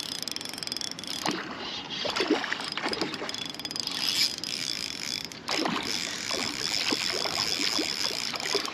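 Spinning reel being cranked, its gears whirring steadily as line is reeled in.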